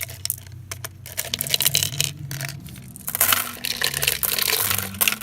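Gumballs and hard candies clicking and clattering against a plastic container as they are handled and tipped out. About three seconds in, the rattling grows denser and louder.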